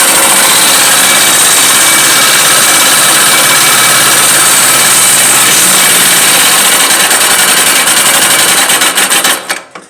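Motorcycle engine running with loud mechanical noise. The customer took it for valves needing adjustment, but it comes from a camshaft running without its bearing. Near the end the engine is switched off and stutters to a stop.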